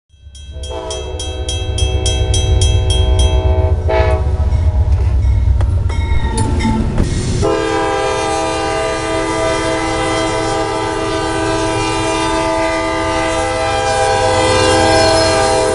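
Freight locomotive passing through a road crossing, its engine and wheels rumbling, with rapid ringing strikes of the crossing bell in the first few seconds. About seven seconds in, the locomotive's multi-chime air horn sounds and is held as one long loud chord to the end.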